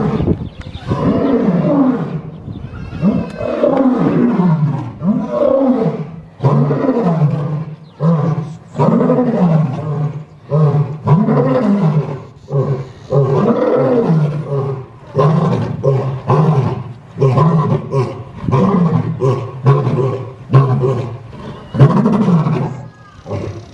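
Lion roaring: a long series of deep, loud calls, each rising and then falling in pitch, repeated roughly once a second.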